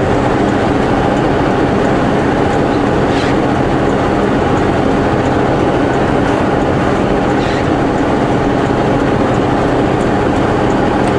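Semi-truck's diesel engine running steadily, heard from inside the cab while driving, with road noise underneath.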